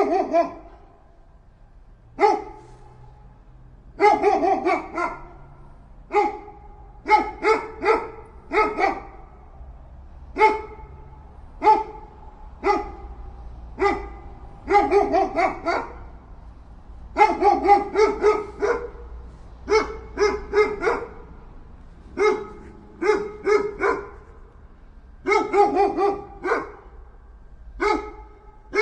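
Dog barking aggressively, in single barks and quick runs of three or four, with pauses of about a second between groups.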